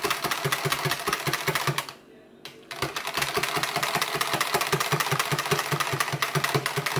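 Hand wire whisk beating a milk-and-yogurt mixture in a plastic measuring jug: fast, even clicking at about eight strokes a second, with a half-second pause about two seconds in.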